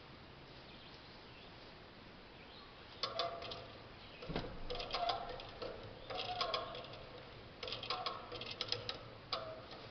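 A hand ratchet come-along being worked: bursts of rapid metallic clicking with a ringing tone, starting about three seconds in and coming stroke after stroke, with a dull thump a little after four seconds.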